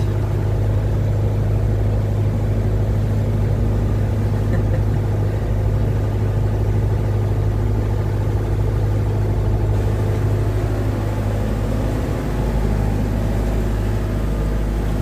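A motor boat's engine running steadily underway, a constant low drone with a strong deep hum.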